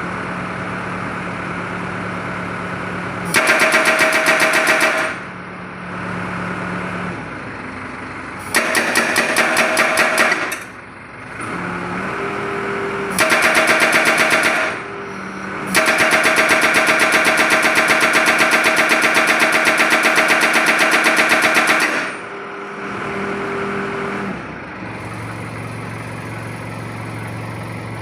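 HMB750 hydraulic breaker hammer on an excavator, hammering in four bursts of rapid, evenly spaced blows, the last and longest running about six seconds. Between the bursts the excavator's diesel engine runs on its own.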